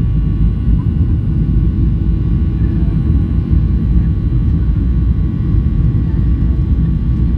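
Boeing 737-800's CFM56-7B turbofan engines at takeoff thrust during the takeoff roll, heard inside the cabin: a loud, steady roar and runway rumble with a faint steady whine above it.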